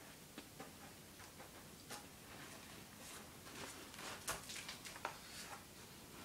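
Cat digging and pawing at litter in a plastic litter box: faint, irregular scrapes and clicks of litter granules, busiest in the middle.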